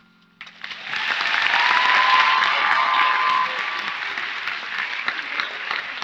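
Audience applauding: clapping breaks out about half a second in, swells to its loudest within a second or so, then carries on a little quieter.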